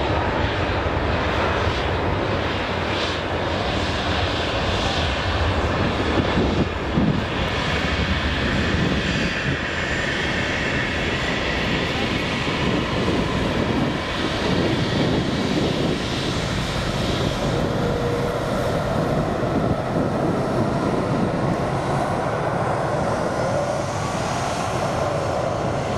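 Airbus A330 twin jet engines at takeoff thrust, a steady loud roar as the airliner rolls down the runway, lifts off and climbs away.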